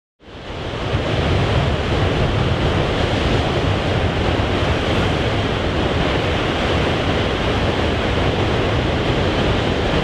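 Heavy ocean surf and wind: a loud, steady wash of noise with a low rumble underneath, fading in over the first second.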